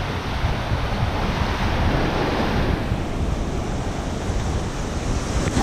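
Small sea waves breaking and washing up a sandy shoreline in a steady wash of surf, with wind rumbling on the microphone.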